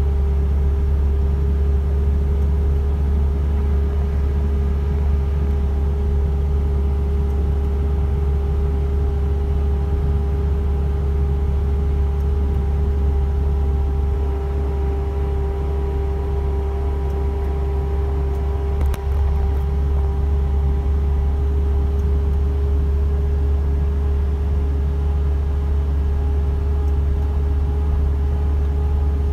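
Steady in-cab drone of an Isuzu FVR truck's diesel engine and road noise while driving, a constant low rumble with a steady whine over it. One brief click comes about two-thirds of the way through.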